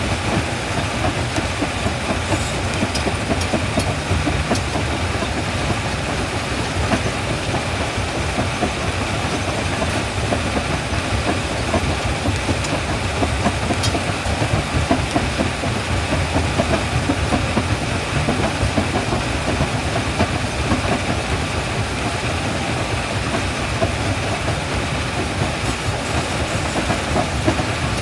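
Stone jaw crusher running and crushing rock: a continuous grinding clatter of rock breaking between the jaws, with many small irregular knocks over a steady low machine noise.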